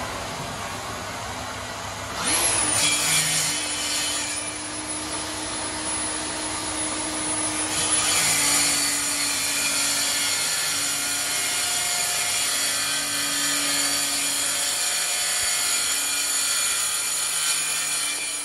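DeWalt 54-volt cordless track saw spinning up about two seconds in and cutting along its rail through MDF. The cut grows louder about eight seconds in and stops near the end. A dust extractor hums steadily underneath.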